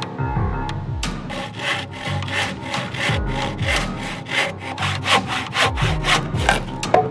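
Handsaw cutting through wood in quick, even back-and-forth strokes, with music underneath.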